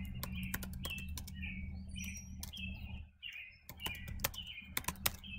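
Typing on a computer keyboard: a quick, uneven run of key clicks, sharpest near the end. A series of short high chirps sounds alongside, over a faint steady hum.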